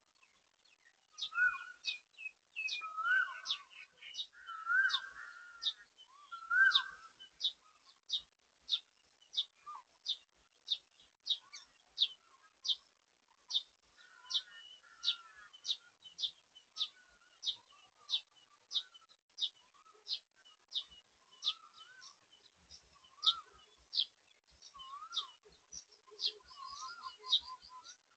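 Birds calling: one repeats a short, sharp high note about every two-thirds of a second, while another gives lower warbling calls now and then.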